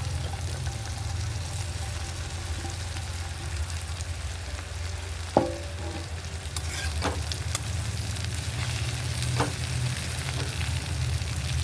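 Okra masala sizzling in a pan while it is stirred. There is a steady frying hiss with a few light scrapes, and a sharp ringing clink of the spoon against the pan about five seconds in.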